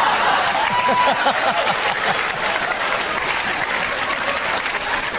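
Studio audience applauding and laughing after a gag, with a few voiced whoops and laughs in the first second or so.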